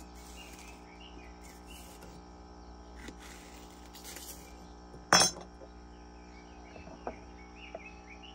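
Knife cutting a green pepper on a wooden board, with light cutting sounds and one sharp knock of the blade on the wood about five seconds in, then two lighter taps. Birds chirp throughout over a steady hum.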